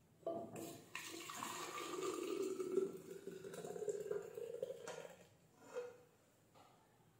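Hot milky tea poured from a pan into a glass jug: a steady splashing stream for about four seconds. A short clink comes near the end.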